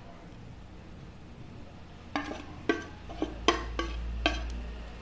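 Metal spoon clinking and scraping against a stainless steel saucepan, about six sharp ringing taps from about two seconds in, as thick melted jaggery syrup is scraped out of the pan.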